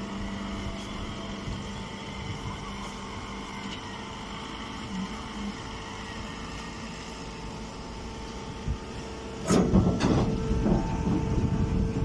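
Hydraulic hay baler's power unit running with a steady hum. About three-quarters of the way in, a much louder noisy clatter starts and goes on to the end.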